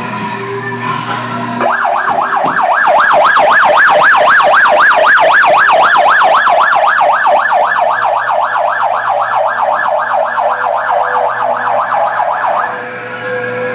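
An electronic siren-like sound effect warbling rapidly up and down, about four sweeps a second. It starts about two seconds in and cuts off about a second before the end, over a steady low hum.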